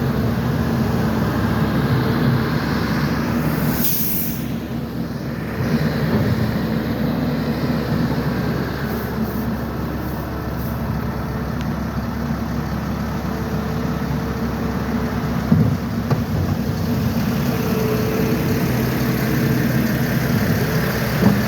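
Heavy diesel engine running steadily at a low drone. About four seconds in there is a brief sharp hiss, like an air release, and later a couple of sharp knocks.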